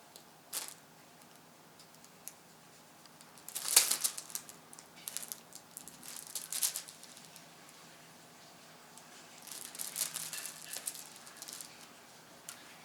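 A foil sheet crinkling and rattling in short bursts as a kitten paws and pounces on it. The loudest burst comes about four seconds in, with further bursts around six and ten seconds.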